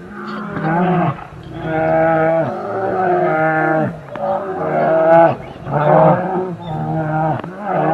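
A bear calling over and over: a run of about six drawn-out, pitched calls, each about a second long, holding steady and then dropping in pitch at the end.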